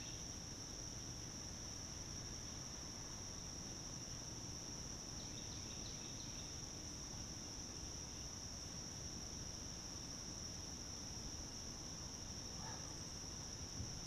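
Steady chorus of insects, a constant high-pitched drone. Near the end comes a brief swish as a fishing rod is cast.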